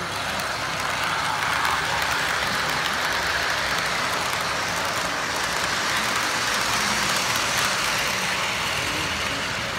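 Model train running past: a New York Central diesel locomotive and freight cars rolling along the track with a steady running noise that swells from about a second in and eases near the end.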